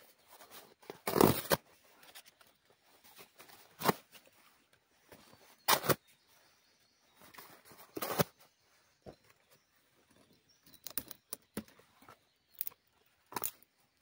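Irregular rustles and sharp cracks of dry twigs and forest litter being handled or stepped on, the loudest a half-second crunch about a second in, with a run of small quick cracks near the end.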